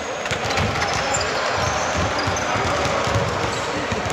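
A basketball being bounced and dribbled on a court, with repeated low thuds over a steady din of voices and short high squeaks.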